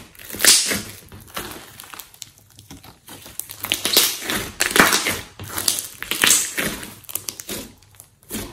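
Thick slime squelching and crackling under kneading hands, with a dense run of sticky pops as it is pressed, squeezed and pulled; a loud burst about half a second in and the busiest, loudest stretch from about four to seven seconds in.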